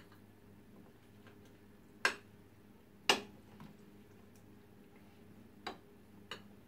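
Metal spoons and forks clinking and scraping against a ceramic plate of rice and stew, five sharp clicks spaced irregularly, the loudest about three seconds in.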